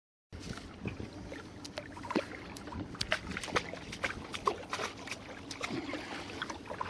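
Water lapping and trickling against a kayak hull, with many scattered small knocks and clicks. A brief moment of dead silence comes at the very start.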